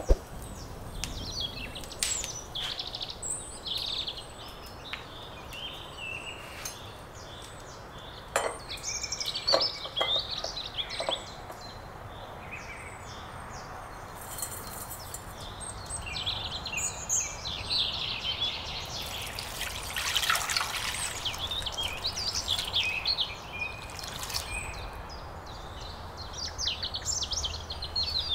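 Small birds chirping and singing in the background, with sharp crackles and clicks from a burning wood fire early on. Around the middle comes a brief fine rattle of salt being shaken from a shaker onto marrow bones.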